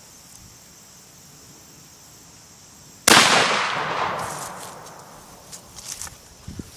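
A single 12-gauge slug fired from a New England single-shot shotgun about three seconds in: one loud bang that fades away over about two seconds.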